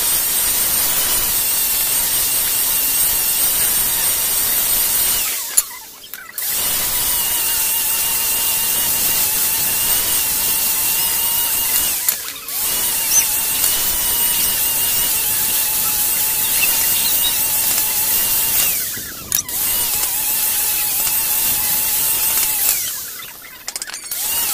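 Electric angle grinder with an abrasive disc running with a steady high whine while grinding and shaping the ends of wooden strips. The sound falls away briefly four times before the grinder runs again.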